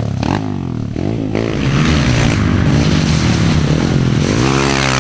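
Pit bike engine revving through a muddy trail section, its pitch rising and falling repeatedly with the throttle.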